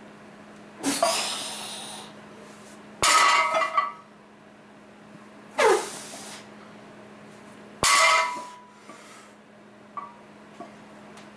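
Four loud, sharp breaths or efforts about two seconds apart, the second and fourth starting with a metallic clank like barbell plates knocking. These are typical of a lifter working through reps with a loaded bar.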